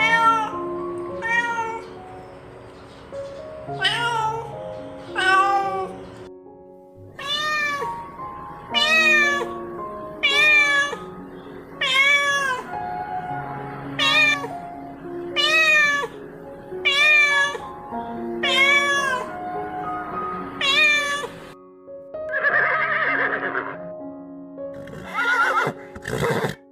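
A cat meowing over and over, about fourteen short calls roughly a second and a half apart, each rising then falling in pitch, with a rougher, hoarser call near the end. Background music plays underneath.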